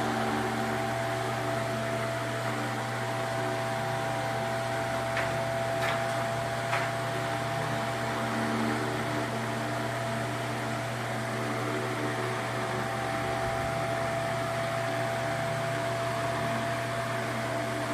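Ventisol VOP 60 MX G3 60 cm, 200 W wall fan running at maximum speed, with no dimmer in circuit: a steady rush of air over a low motor hum and a steady higher tone, a fairly noisy fan at a very high rotation.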